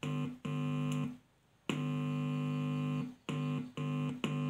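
Buzz from a speaker driven by an Alpine CDE-9870 car stereo's amplifier, cutting in and out about five times as a tool tip touches and leaves the radio tuner's audio output pin. The buzz shows that the pin is a working audio input to the amplifier.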